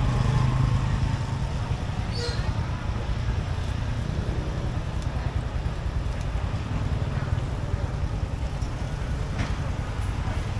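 Street ambience: a steady low rumble of road traffic, with a few light clicks scattered through it.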